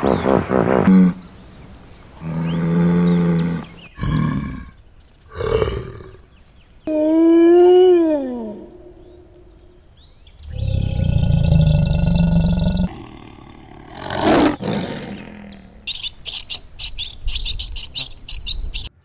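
A run of separate recorded animal calls, one after another with short gaps: several loud pitched calls, one sliding down in pitch, then quick high chirps near the end.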